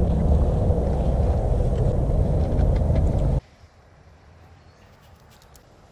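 Wind blowing across a head-mounted GoPro microphone, a loud steady noise that cuts off abruptly about three and a half seconds in. After it comes a faint outdoor background with a few soft clicks.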